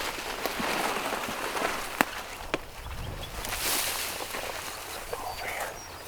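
Footsteps through brush and grass, an uneven rustling with two sharp clicks about two and two-and-a-half seconds in.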